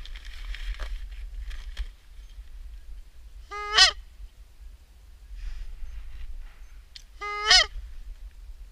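Two loud goose honks about four seconds apart, each a short call that breaks upward in pitch.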